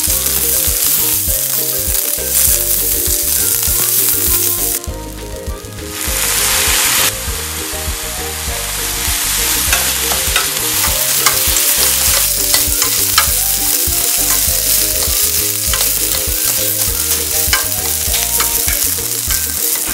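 Fish cake strips and sliced onion sizzling in hot oil in a frying pan while being stir-fried with a spatula, with frequent scraping and tapping clicks against the pan. The sizzle dips briefly about five seconds in.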